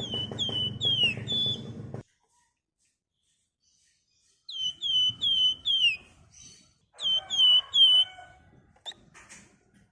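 Javan fulvettas (wergan Jawa) singing: three short phrases of four or five clear whistled notes, each note dropping slightly in pitch, with about two seconds of quiet after the first phrase.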